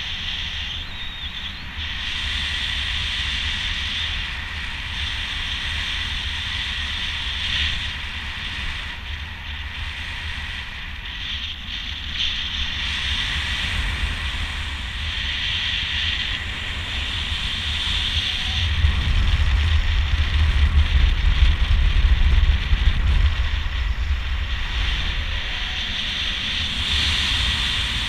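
Airflow rushing over the microphone in flight under a speedflying wing: a steady hiss with low buffeting that grows stronger for several seconds past the middle.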